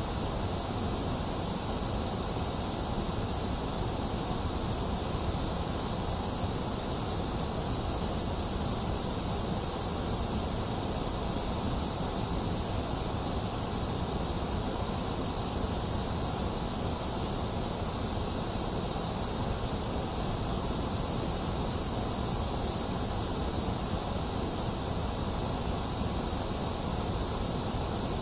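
Box fan running steadily, mixed with steady rainfall: an even, unchanging hiss with no separate sounds.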